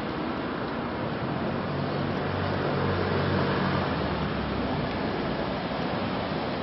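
Steady rushing road-traffic noise, with a vehicle engine's low hum rising out of it for a couple of seconds in the middle.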